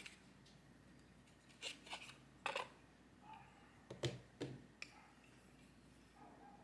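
Plastic eyeglass frames and a hard glasses case being handled: a handful of light, sharp clicks and taps as the frames are lifted out of the open case and turned in the hand, with quiet between them.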